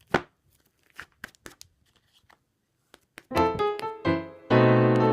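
Slime being handled, giving a few short, sparse crackles and pops, one sharper just after the start. Piano music begins about three seconds in and carries on.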